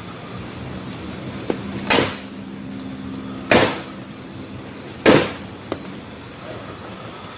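Three loud, sharp bangs about a second and a half apart, each ringing briefly, with a few fainter clicks between them. This is the noise the camper describes as something raging.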